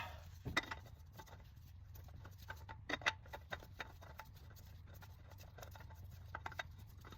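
Faint scraping and clicking of a spin-on oil filter being handled and threaded onto its mount by hand, its gasket freshly oiled. There are scattered short scratches and ticks over a steady low hum.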